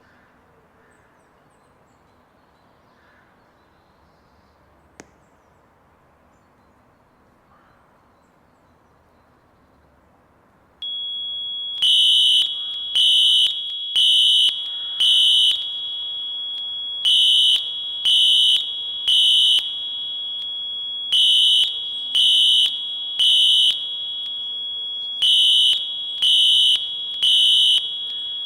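After about eleven seconds of quiet, Wheelock fire alarm horns and a smoke detector go off. A steady high-pitched tone comes on first. About a second later, loud, buzzy beeps join it in groups of three with a longer pause between groups: the temporal-3 fire evacuation pattern.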